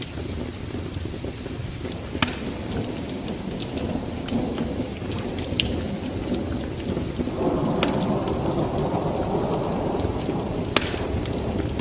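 Wood fire burning in a fireplace: a steady low rumble of flames with scattered sharp crackles and pops. About seven seconds in, the flames' hiss grows louder.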